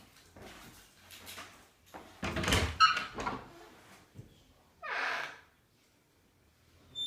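A door or cabinet door being opened and shut: several knocks and thuds, with a brief squeak about three seconds in and a short swish near five seconds.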